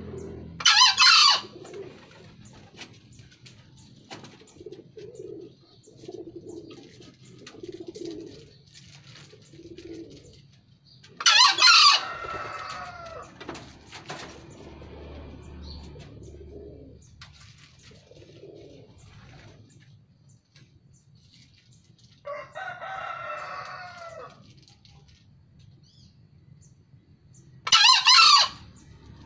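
Male green junglefowl crowing three times, about ten seconds apart; each crow is short and shrill. Soft low clucks and a longer, lower call fall between the crows.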